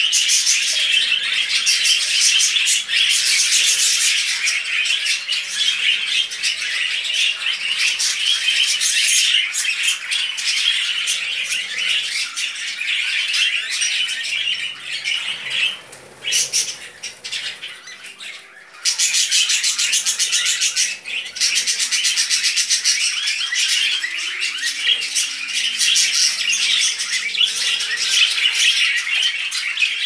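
Budgerigar chattering, a continuous stream of rapid squawks and chirps. It goes quieter for a couple of seconds a little past halfway, then starts again abruptly.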